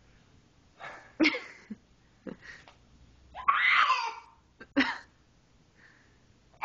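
Young child making weird noises in a small temper tantrum: a few short, sharp vocal bursts and one longer raspy cry in the middle.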